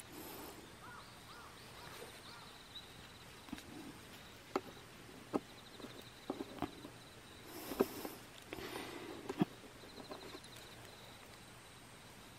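Scattered light clicks and rustles of steel wire cable, coil spring and aluminium crimp sleeves being handled with gloved hands while a boar foot-snare is repaired, with several sharper clicks in the middle. An insect trills high and faint in short runs behind.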